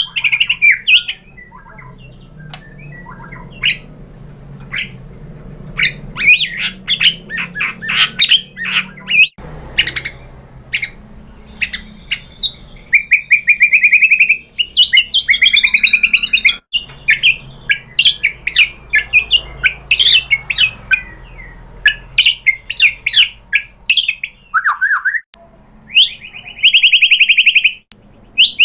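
White-rumped shama (murai batu) in full song: a long, varied run of quick chips and whistled phrases broken by fast rattling trills, one about halfway through and another near the end.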